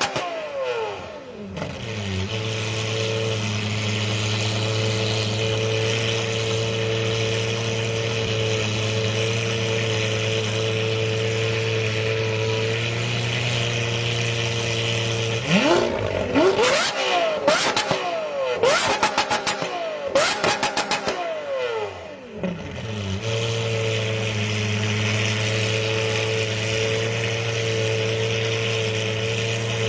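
Lamborghini supercar engine: a rev falls away at the start into a steady idle, then about halfway through it is blipped through a quick run of sharp revs, each rising and dropping, before settling back to a steady idle.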